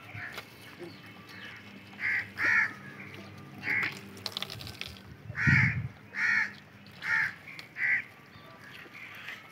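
Short animal calls, repeated about seven times at intervals of half a second to a second and a half. Milk from a steel jug splashes into a foam tray about four seconds in.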